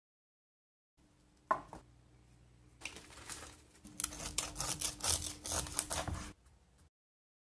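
Knife slicing through crisp roasted pork-belly crackling on a wooden board: a dense run of sharp crunching cracks from about three seconds in, stopping a little after six seconds, with a single sharp crack earlier.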